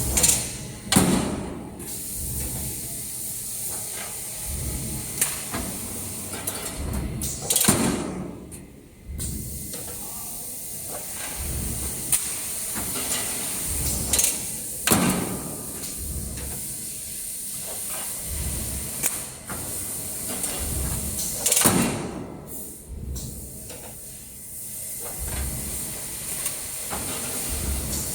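Uncoiler-straightener-feeder coil line running: a steady hiss over a low pulsing hum, with a louder sudden clunk and rush of noise about every seven seconds.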